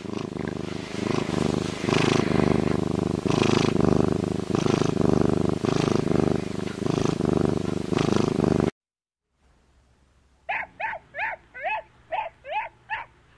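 A Eurasian lynx's low, rough rumbling call, pulsing over and over, that cuts off sharply about nine seconds in. After a short gap, a golden retriever puppy gives about eight short, high yips in quick succession.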